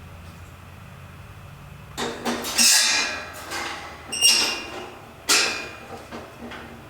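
Sheet-metal parts of a portable kerosene heater clanking and rattling as they are handled and fitted during assembly, several sharp metallic clatters with a ringing tail. A low steady hum comes first, for about two seconds.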